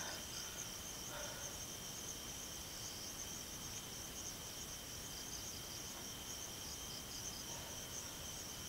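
Night insect chorus: crickets trilling steadily, with a high trill and a second, lower steady tone beneath it.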